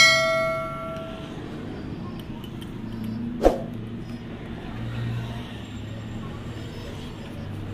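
Ringing metal clang from steel shock absorber parts and tools, dying away over about a second, then a single sharp knock about three and a half seconds in, over a low steady hum.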